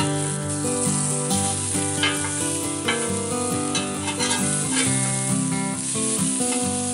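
Steaks sizzling on the ridged cast-iron griddle of a Lodge Cook-It-All while a metal spatula turns them, with a few sharp scrapes or taps. Acoustic guitar music plays underneath.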